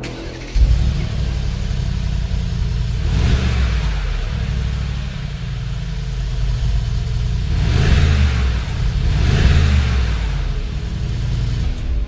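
Mercedes-AMG G 63's twin-turbo V8 engine running, revved three times, about three, eight and nine and a half seconds in, each rev rising and falling back.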